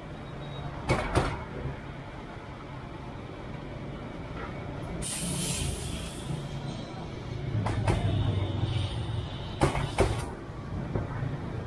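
Street traffic from passing motorbikes, a low rumble that swells about eight seconds in, with a brief hiss about five seconds in and a few sharp clicks about a second in and again near the end.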